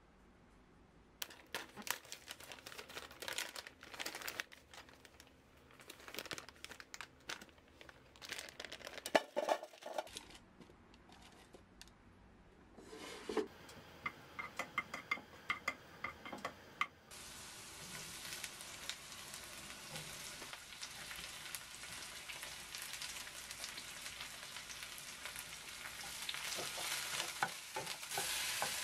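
Clicks and crinkling of a plastic food packet being handled, then, from a little past halfway, a steady sizzle of garlic frying in oil in a pan. The sizzle gets louder near the end as sliced onion, celery and chillies are stirred in with a wooden spatula.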